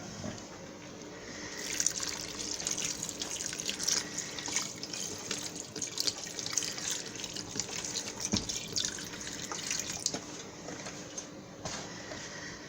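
Chicken broth pouring from a carton into a pot of cooking greens: a steady splashing pour that starts about a second and a half in and tapers off near the end.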